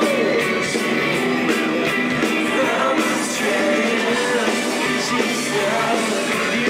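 Live rock band playing a song: singing over guitars and drums with cymbal hits.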